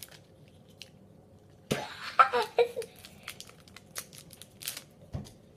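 Foil wrapper of a Pokémon booster pack crinkling and crackling in the hands as the torn-open pack is handled, in many short crackles after a quiet start. A brief voice sound comes about two seconds in, and a dull thump near the end.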